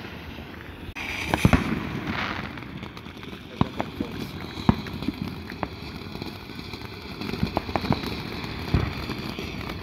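Ground fountain firework spraying sparks with a steady hiss, broken by scattered sharp pops and crackles, a few of them louder.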